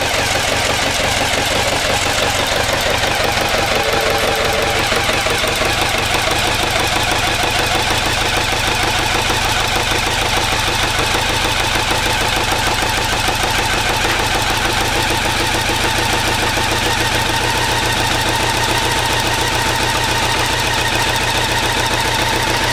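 BMW K1100RS's liquid-cooled inline four-cylinder engine running steadily at a constant speed, with no revving, while its fuel injection is tuned.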